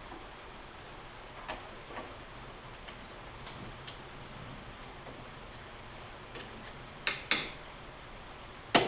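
Metal parts of a South Bend Heavy 10 lathe's motor drive assembly clicking and knocking as they are fitted together: a few light ticks, then three sharp metal clicks near the end, the last as a part goes into place.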